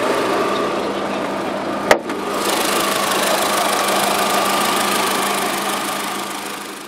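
Skoda Fabia's 1.4-litre 16-valve naturally aspirated inline-four idling steadily, heard over the open engine bay. A single sharp click about two seconds in, after which the engine sounds brighter; the sound eases off near the end.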